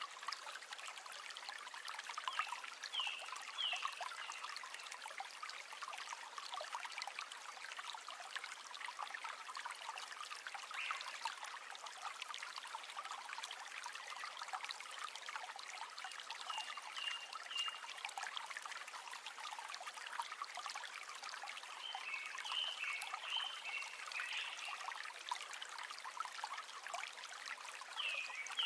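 River water flowing and trickling steadily, with short high chirps from a small animal breaking through a few times.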